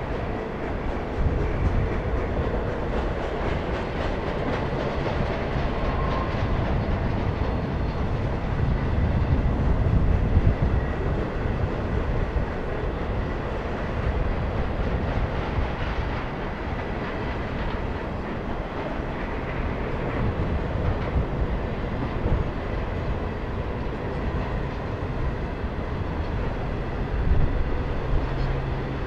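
Cars of an intermodal freight train, loaded with truck trailers and containers, rolling past: steel wheels on rail making a steady noise.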